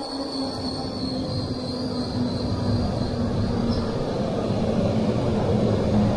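E5 series Shinkansen pulling into the platform and slowing to a stop: a rumble of wheels and air with a steady electric motor whine that drops in pitch about four seconds in, growing louder as the cars pass close by.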